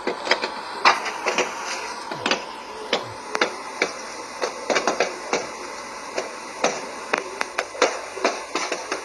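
A burning lorry with its load bursting in the fire: an irregular string of sharp pops and bangs, several a second, some louder than the rest.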